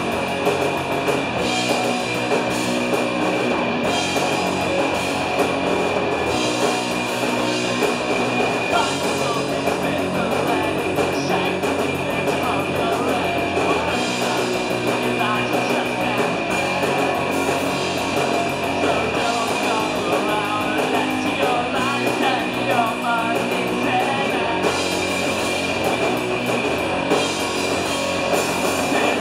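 Live punk rock band playing loud and steady: electric guitars and a drum kit, with a singer at the microphone.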